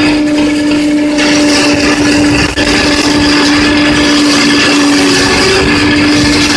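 Tractor-mounted single-row forage harvester running in standing maize, its chopper and blower driven by the tractor engine: a loud, steady machine drone with a constant hum and a hiss of chopped crop blowing through the spout.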